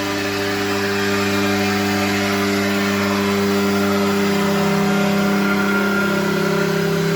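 CNC milling machine running with a steady, even hum, its pitch shifting slightly about halfway through.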